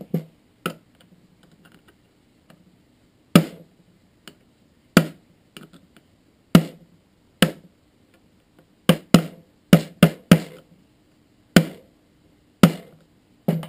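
A Hi-Capa airsoft pistol's hammer being cocked and dry-fired over and over: about fourteen sharp clicks and snaps, spaced irregularly, with a quick run of them about nine to ten seconds in. This is a function check after reassembly, showing that the trigger and hammer work.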